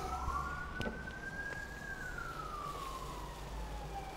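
Emergency-vehicle siren wailing: a single tone that rises slowly for about two seconds, falls for about two more, and starts to rise again near the end.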